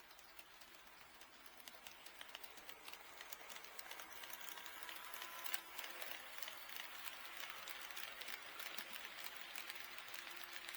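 HO-scale model train running on KATO Unitrack, a rapid, irregular clicking of wheels over the rail joints that grows louder about two seconds in as the train comes closer.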